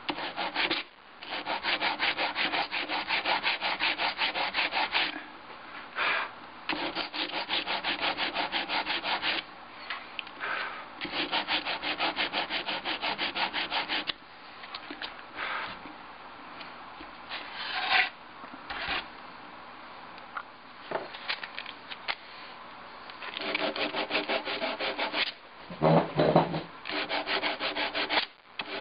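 Sandpaper wrapped around a flat wooden stick rubbed quickly back and forth over a soldered lead seam on a glass display case, smoothing down the solder. The strokes come in runs broken by short pauses, with a louder knock near the end.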